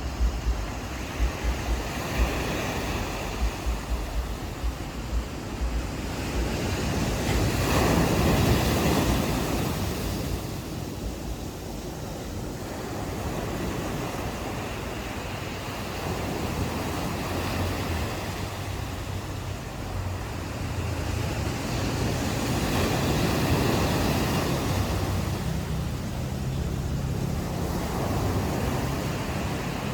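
Ocean surf breaking and washing up the shore, swelling twice, about fifteen seconds apart. Wind buffets the microphone in the first few seconds.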